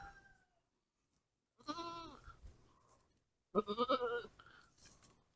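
Goats bleating: a call about a second and a half in, then a quavering, stuttering bleat about three and a half seconds in, after the tail of an earlier bleat fades away at the start.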